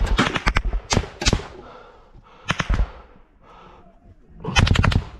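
Automatic gunfire at close range: a quick burst at the start, two single loud shots about a second in, a short burst near the middle, and a longer rapid burst near the end.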